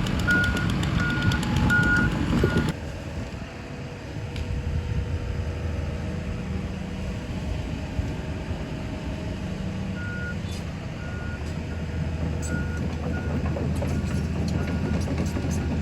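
A backup alarm on heavy equipment beeps about twice a second over the steady drone of its diesel engine. The beeping stops about three seconds in and comes back more faintly about ten seconds in.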